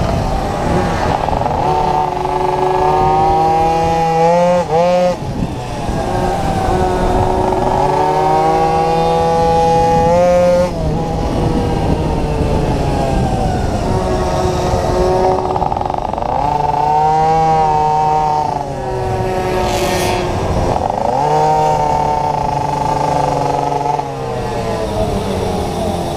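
Onboard sound of a minimoto racing minibike's small engine, revs climbing in a rising whine along each straight and dropping away into each corner, over and over. Near the end it eases off to a lower, softer note as the bike slows.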